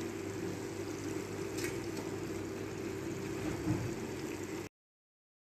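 Eggplant and potato curry simmering and bubbling in a pot, with a steady hum underneath; the sound cuts off abruptly near the end.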